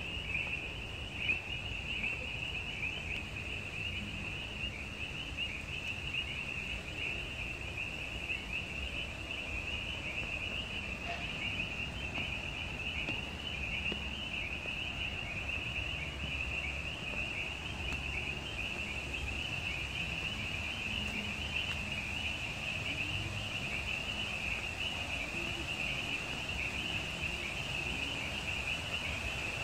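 A dense, continuous chorus of many birds chirping together in a high, unbroken chatter, with the fountain's water as a low steady rush beneath.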